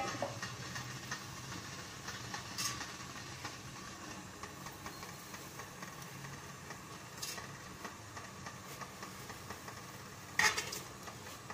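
Salted water heating toward the boil in a stainless steel pot on the stove: a steady faint hiss, with a few light clicks, the sharpest about ten seconds in.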